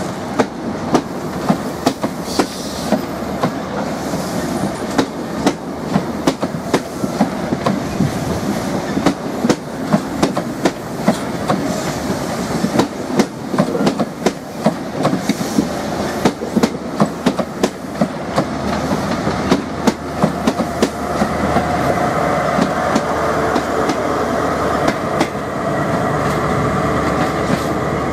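High Speed Train Mark 3 coaches rolling past close by, their wheels clicking over rail joints in a rapid, irregular clatter. From about twenty seconds in, a steady diesel engine drone from a Class 43 power car rises over it.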